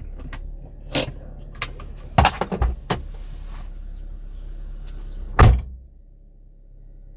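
Clicks and knocks of things being handled, then a car door slammed shut about five and a half seconds in, after which the surrounding noise drops to a quieter, steady low hum.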